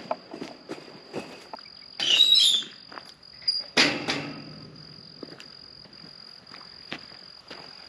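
Insects trilling steadily on one high pitch, with a person's footsteps and scattered knocks on the trail and metal footbridge; two louder rustling bursts come about two and four seconds in.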